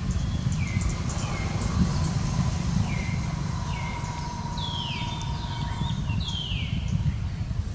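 Short high chirping calls repeated about once or twice a second, each falling in pitch, over a steady low rumble.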